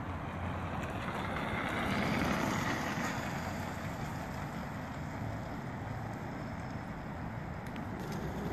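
Hub-motor electric scooter rolling past on a paved path: its noise swells about two seconds in as it passes and then fades as it rides away, over a steady outdoor background hiss.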